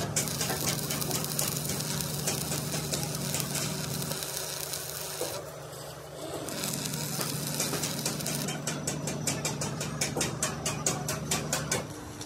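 Workshop machinery running with a steady low hum and a constant crackling hiss that dips briefly midway; in the last few seconds rapid, regular clicks join in, about four or five a second.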